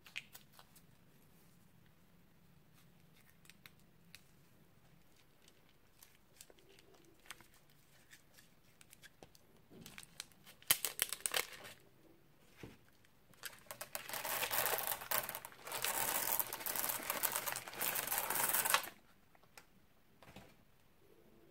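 A few light handling clicks, then a clear plastic piping bag crinkling as scissors snip its tip about ten seconds in. From about thirteen seconds a dense rattle of small beads pouring out of the bag onto the slime tray, lasting about five seconds and stopping abruptly.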